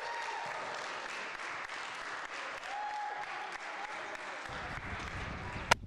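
A group of students clapping and cheering, with a few voices calling out over the applause. A low rumble comes in shortly before the end, and there is a single sharp click just before the end.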